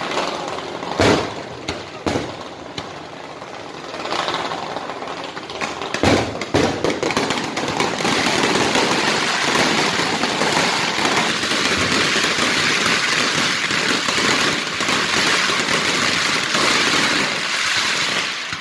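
Fireworks display: a few heavy booming bursts in the first six seconds, then from about eight seconds a dense, continuous crackle of many small rapid reports from crackling glitter shells.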